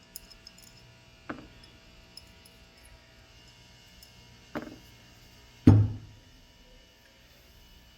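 Three heavy knocks as a safety pressure valve is taken apart on a bench, the third the loudest and deepest, each dying away quickly.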